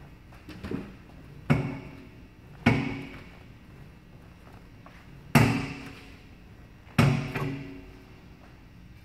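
Gym weights or machine parts clanking: a lighter knock, then four loud sharp metal clanks at uneven intervals, each ringing briefly as it dies away.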